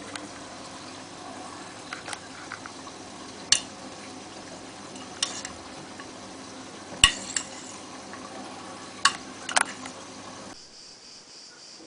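Hotpoint-Ariston AVXXF137 washing machine running a wash, its drum turning the laundry with a steady hum and sharp clinks every second or two. The drum motor's hum stops near the end.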